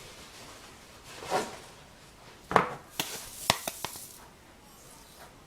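Kitchen utensils and containers being handled: a soft knock, then a quick run of sharp clinks and knocks, the loudest about two and a half seconds in.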